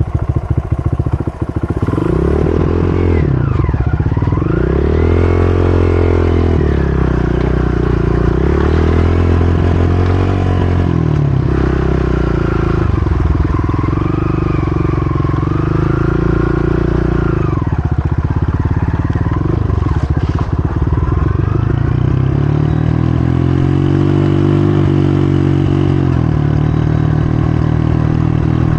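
Dirt bike engine running hard, its revs rising and falling again and again as the throttle is opened and eased off, with a few stretches held at steady revs.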